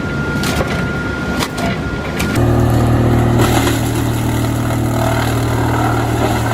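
Heavy wood-chipping machinery at work: sharp cracks and knocks of wood being broken over a steady high whine, then, a little over two seconds in, an abrupt change to a large engine running steadily with a deep hum.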